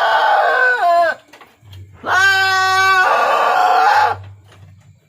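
A goat bleating loudly, two long calls. The first is already sounding and breaks off about a second in with a drop in pitch. The second starts about two seconds in, holds a steady pitch for about two seconds and turns harsher near its end.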